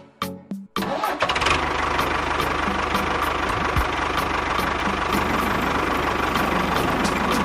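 A small engine cuts in abruptly about a second in and keeps running steadily with a fast, even low pulse, like a mini tractor's motor running.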